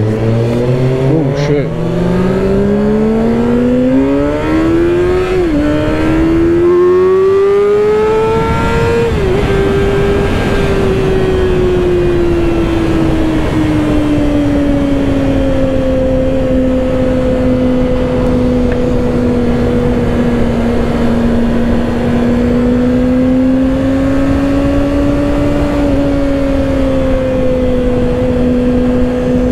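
2024 Kawasaki ZX-6R's 636 cc inline-four revving hard under acceleration, climbing through the gears with quick shifts in the first several seconds. It then eases off and holds a steady high-revving cruise, under a constant rush of wind noise.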